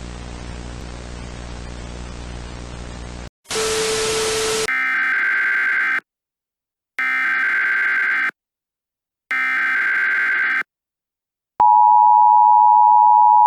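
Static hiss with a low hum for about three seconds, a short burst of louder static, then three Emergency Alert System SAME header data bursts, each about a second long with a gap of about a second between them. Near the end the EAS two-tone attention signal starts, a steady harsh pair of tones.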